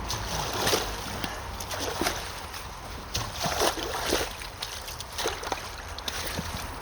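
Water splashing and sloshing in a clogged culvert as sticks and roots are pulled from the blockage, with irregular knocks and splashes over a steady low rumble.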